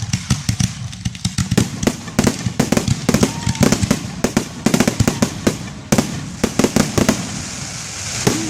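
Fireworks going off: a rapid, irregular run of sharp bangs and pops, thinning out near the end.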